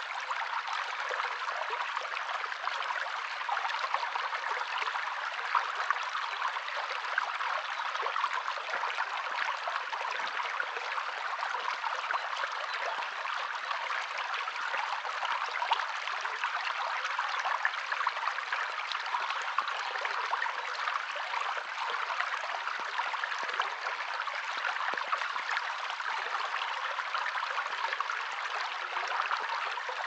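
Shallow stream trickling over stones: a steady, even rush of running water.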